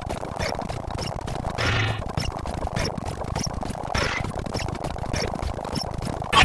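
A jumble of overlapping sound-effect clips layered together, with rapid clicks several times a second; a louder, different sound cuts in at the very end.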